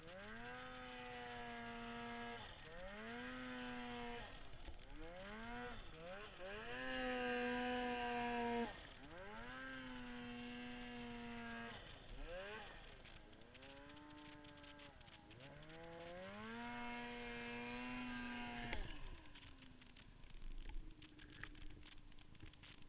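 Turbocharged Polaris Dragon 800 snowmobile's two-stroke engine revving again and again, each blip of throttle climbing in pitch, holding for a second or two, then falling away. About nineteen seconds in the throttle is let off sharply, and the engine drops to a low steady idle with light clicks.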